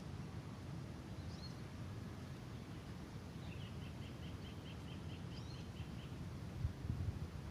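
A bird calling over a steady low outdoor rumble: a quick run of about a dozen short, evenly spaced notes in the middle, with a few single chirps before and after. A couple of low thumps come near the end.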